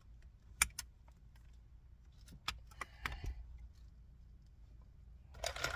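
Scattered light clicks and rattles of wires and plastic wiring-harness connectors being handled in a dashboard radio opening, with a louder cluster of clicks near the end, over a low steady hum.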